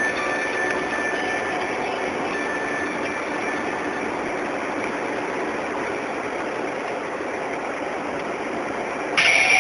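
Hail and heavy rain pelting steadily. Just before the end it suddenly gets louder and brighter.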